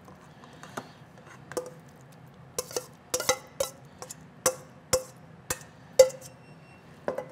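A stainless steel mixing bowl knocked about a dozen times at uneven intervals as filling is tapped out of it into a pan. Each knock is sharp and rings briefly, and the loudest comes about six seconds in.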